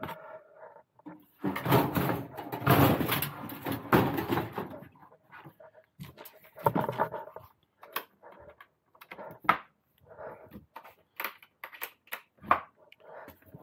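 A green steel Coleman camp stove is slid into a plywood box with loud scraping and knocking. Then a plywood cover is fitted and its metal draw latch is worked, giving a string of short clicks and knocks.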